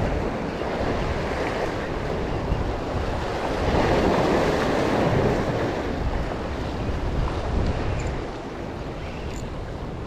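Rough sea surf washing and breaking against a rocky breakwater, with wind buffeting the microphone. The surge is loudest about four seconds in and eases off near the end.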